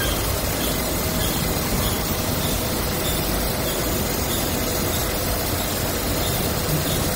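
Steady running noise of an industrial fabric printing machine, with a faint regular tick a little under twice a second.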